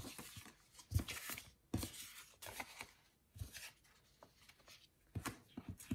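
Paper sticker sheets being shuffled and lifted on a desk: irregular rustles and light taps, the sharpest about a second in.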